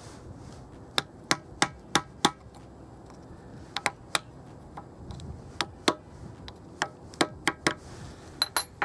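Hammer tapping a brass drift to drive a ball bearing into an angle grinder's gearbox cover: about sixteen sharp metallic taps in short runs of two to five, the first few followed by a brief high ring.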